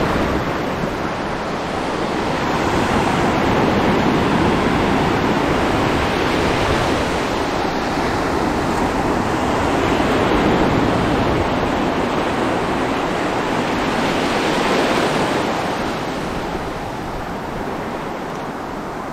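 Shoreline waves washing with wind buffeting the microphone: a steady rushing noise that swells and eases several times and fades a little near the end.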